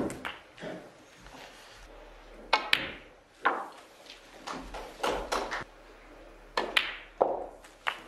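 Snooker balls clacking in a break: the cue tip striking the cue ball and the cue ball hitting object balls. The sharp clicks come singly and in quick pairs and runs, about a dozen in all, the busiest run around five seconds in.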